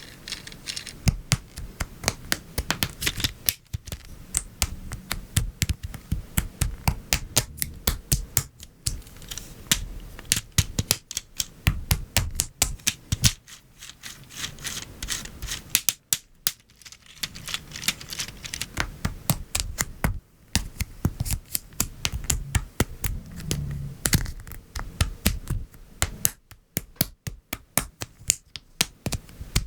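LEGO Technic parts being assembled by hand: a rapid, irregular run of plastic clicks and snaps as pins, beams and pieces are pressed together, with brief pauses.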